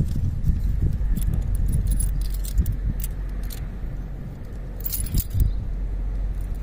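Puppy nosing and chewing at dry bits on the ground: scattered small, crisp clicks and crackles, bunched about a second in and again near five seconds, over a steady low rumble.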